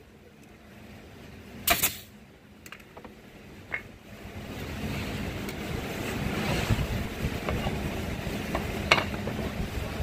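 A pneumatic brad nailer fires a brad into oak trim with one sharp shot a couple of seconds in. A rushing noise then builds up, with wood pieces being handled and a sharp knock near the end.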